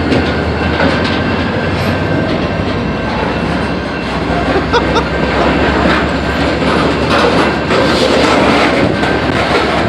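CSX freight train passing at close range: a loud, continuous rumble of the cars with the wheels clattering over the rails, and a faint high wheel squeal.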